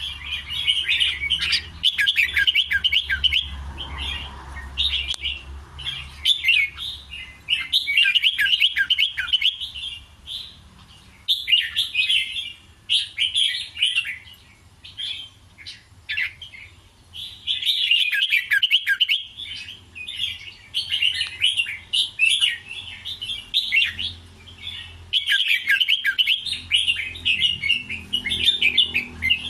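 Red-whiskered bulbul singing runs of quick, repeated warbling phrases, broken by short pauses.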